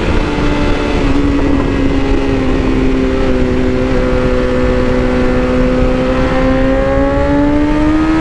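BMW S1000RR inline-four engine running at a steady cruise, its pitch sagging slightly at first and then climbing smoothly over the last couple of seconds as the bike accelerates in gear.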